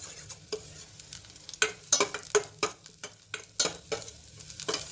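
Metal spoon stirring in a steel pot, clinking and scraping against the pan repeatedly and irregularly, while chopped green chilli fries with garlic and ginger in ghee with a light sizzle.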